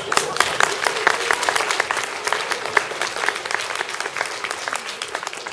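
Audience applauding, a dense spatter of claps that gradually dies down toward the end.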